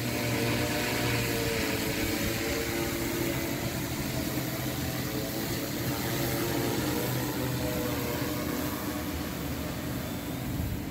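Multirotor drone's propellers and motors humming steadily in hover, the pitch wavering slightly as the motors correct against gusts, with wind rushing over the microphone.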